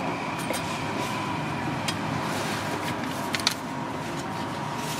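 Steady hum of street and traffic noise, with a few light clicks and taps as a metal crepe spatula works against a wooden board, the sharpest about three and a half seconds in.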